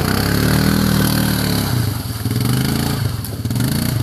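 CFMoto CF500 2A ATV's single-cylinder four-stroke engine revving up and down under load, its pitch rising and falling several times.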